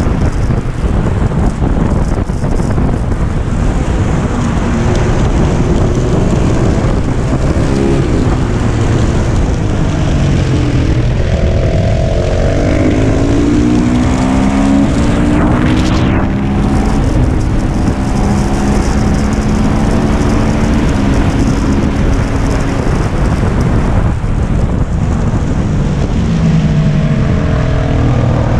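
KTM 690 SMC R supermoto's single-cylinder engine pulling hard at track speed, its pitch climbing and dropping again and again through gear changes and braking for corners, over heavy wind rush.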